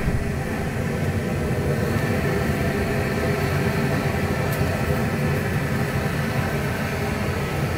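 Propane torch burner running with a steady rushing noise, firing into the base of a steel-pipe burn barrel to light a stump.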